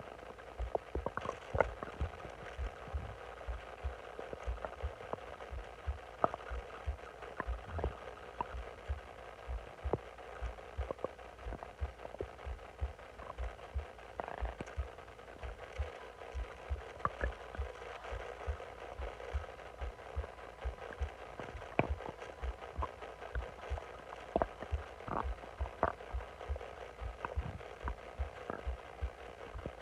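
Bloated stomach gurgling: short, irregular gurgles and squeaks over a steady train of soft, dull thumps about twice a second.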